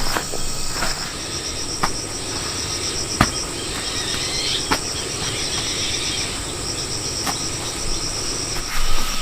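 Insects chirring steadily, a high, rapidly pulsing trill. A few sharp clicks or taps sound through it.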